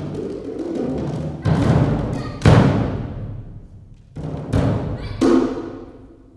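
Solo multi-percussion playing on large bass drums and congas. A series of deep struck drum strokes each ring and fade, and the heaviest comes about two and a half seconds in.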